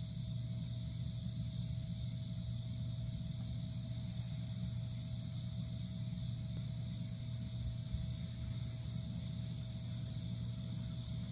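Crickets chirring steadily, over a low steady hum and a faint steady tone.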